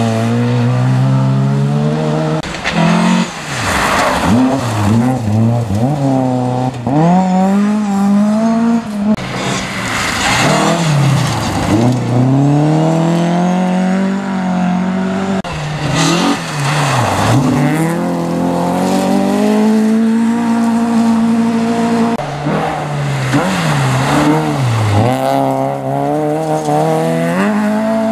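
Rally cars passing at speed one after another on a gravel stage. Each engine revs high, drops with gear changes and lifts, then rises again, over tyre and gravel noise.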